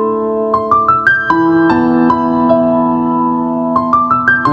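Instrumental outro music: held chords, with a quick rising run of notes about half a second in and again near the end.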